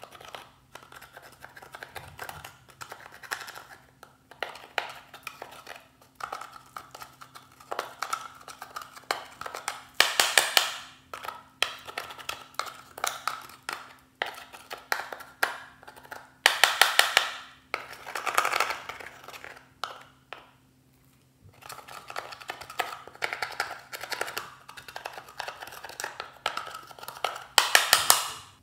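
A thin tool scraping and tapping at the eyeshadow in a makeup compact: quick runs of small scratchy clicks, with a few louder bursts.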